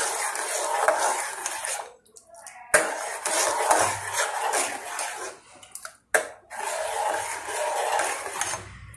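Steel spoon stirring a thin leaf curry in a stainless steel pot, scraping and clinking against the pot in three spells with short breaks between them.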